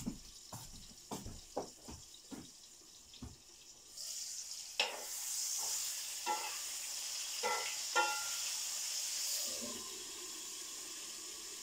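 Off-camera kitchen work: scattered knocks and clinks, then from about four seconds in a steady hiss lasting about five seconds, with a few more knocks. After that a lower, quieter hum remains.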